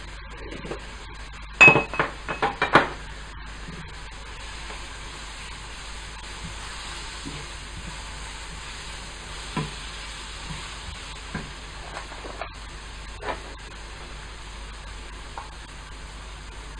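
Diced vegetables sizzling steadily in a frying pan while being stirred with a wooden spatula. A quick run of five or six sharp knocks and clinks comes about two seconds in, the loudest sound, with a few softer taps and scrapes scattered after.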